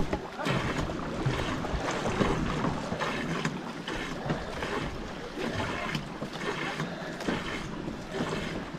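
Racing tandem canoe under way: paddle strokes splashing into the water in a steady rhythm, about one a second, over the continuous rush of water along the hull.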